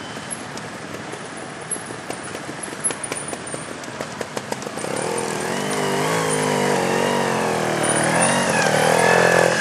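Sidecar trials motorcycle's engine working at low revs, its pitch wavering up and down as the throttle is worked, growing much louder from about five seconds in. Scattered light clicks and ticks sound before that.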